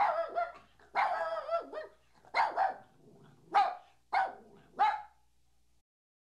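A dog barking: about six calls, the second a longer wavering yelp about a second in, the last three short sharp barks a little over half a second apart.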